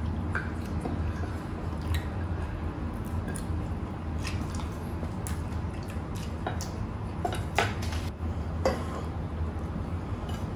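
Mukbang eating sounds: wet squishing of food being mixed and eaten by hand, with short clicks and clinks of fingers and a spoon against ceramic plates. The two sharpest clinks come late, about a second apart, over a steady low hum.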